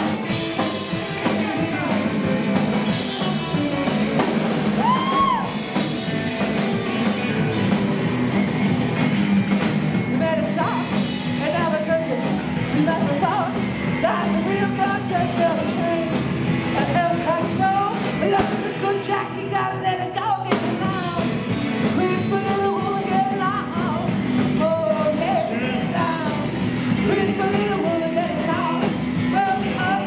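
Live rock and roll band playing: upright double bass, drum kit and hollow-body electric guitar, with singing over it, clearest from about a third of the way in.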